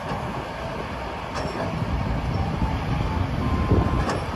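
Large Caterpillar 352F hydraulic excavator at work: a steady, heavy diesel-and-hydraulic rumble, with a couple of faint metallic clanks.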